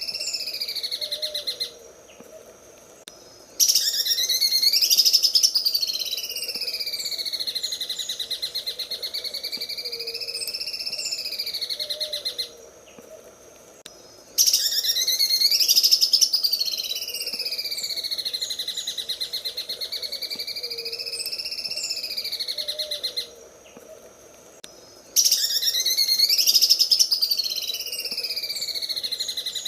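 A cucak ijo (green leafbird) sings its 'sewing machine' song: a fast, machine-like rattle of rapid clicks whose pitch rises and falls in slow waves. Short pauses about every ten seconds break it, and after each pause the same phrase starts again loudly.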